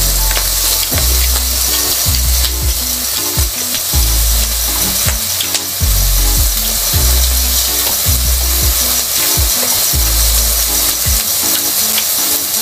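Background electronic music with a deep bass line and a kick drum about every second, under a steady high hiss.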